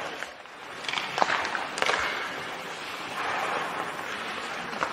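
Ice hockey rink sound during play: a steady hiss with two sharp clicks, about a second and two seconds in.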